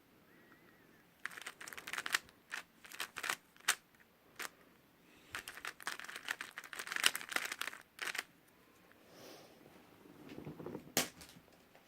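A 3x3 speedcube being turned quickly by hand: rapid clattering clicks in three bursts, with short pauses between them.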